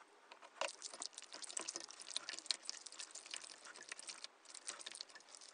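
Slime being stirred and kneaded by hand in a bowl of water: a dense run of small sticky clicks and soft wet smacks.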